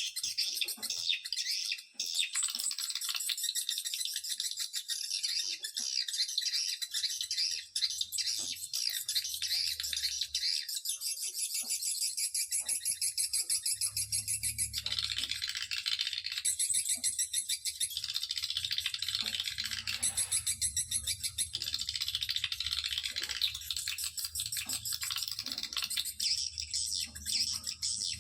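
Recorded swiftlet lure call: dense, high-pitched rattling chatter and trilling of swiftlets, the kind of call track played in swiftlet houses to attract birds. A low hum comes in partway through, under the chatter.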